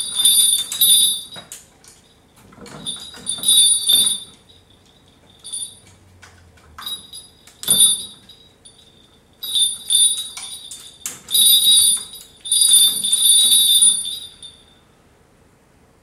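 Two brass bells on a hanging leather strap jingling in repeated bursts as a cat bats at them with its paws. There is a sharper knock about halfway, and the ringing stops near the end.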